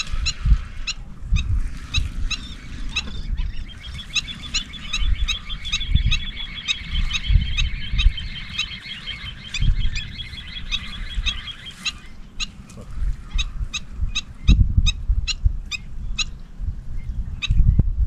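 Birds calling: repeated short, sharp calls, with a rapid trill from about four to twelve seconds in, over wind rumbling on the microphone.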